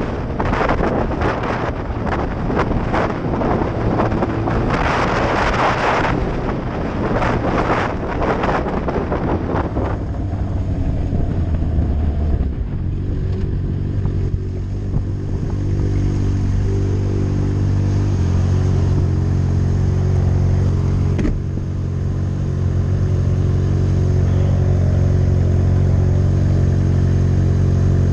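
Yamaha R6 inline-four engine running, with heavy wind rush over the microphone for about the first third. After that the engine's steady, even note comes through clearly, stepping in pitch a couple of times along the way.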